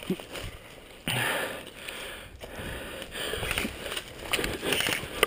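Footsteps rustling through dry fallen leaves, with a person's breathing and sniffing close to the microphone in uneven bursts.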